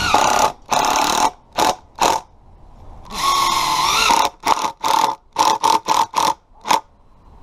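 Cordless Makita driver driving a 3-inch exterior screw through a wooden fascia board into a rafter tail. It runs in two long bursts, the second rising slightly in pitch, then gives a quick string of short trigger pulses that seat the screw so it just dimples the wood.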